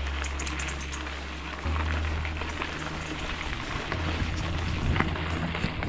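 Bicycle tyres rolling over a loose gravel track, a continuous crackling crunch, with a steady low rumble of wind on the microphone.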